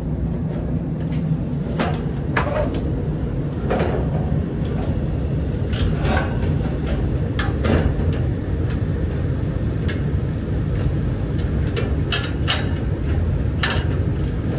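A Bryant gas furnace running with a steady low hum, and a scattered series of short sharp clicks and knocks, about ten, over it from panel and door handling.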